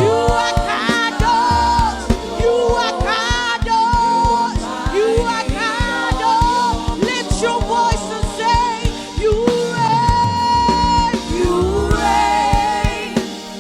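Live gospel worship music: singers carrying a slow melody over a band, with a steady drum beat of about three strokes a second.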